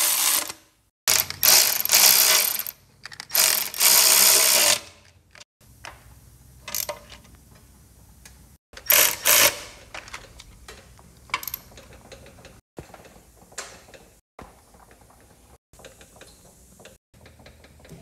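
Cordless electric ratchet running bolts down on a turbocharger, in loud whirring runs: three in the first five seconds and another about nine seconds in. Between the runs come scattered metallic clicks and knocks of socket and tool handling.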